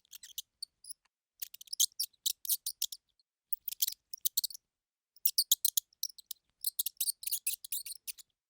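Mouse squeaking: quick runs of short, very high-pitched squeaks in clusters, with brief pauses between them.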